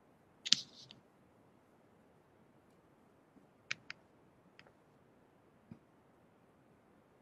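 Faint steady hiss with a short rustling scrape about half a second in, then four sharp clicks spread over the next few seconds, two of them close together.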